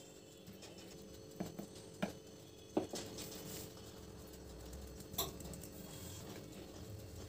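A few sharp knocks and clicks of a spatula and a metal sieve against a glass mixing bowl as flour is stirred and sifted, over a steady faint hum.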